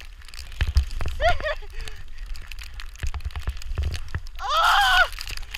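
A snowboarder's wordless whoops and hollers: a short cry about a second in and a louder, longer one near the end, each rising and falling in pitch. Underneath are a steady low rumble of wind on the microphone and scattered sharp knocks.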